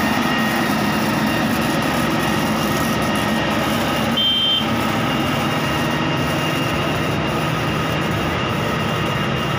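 Diesel engine of a Kershaw BRM-108 ballast regulating machine running steadily as the machine travels along the track. A brief high beep sounds about four seconds in.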